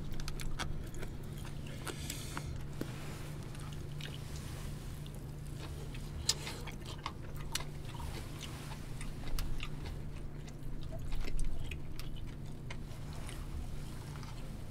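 People eating at close range: chewing, with chopsticks clicking against bowls and plastic takeout containers in scattered sharp clicks. A steady low hum runs underneath.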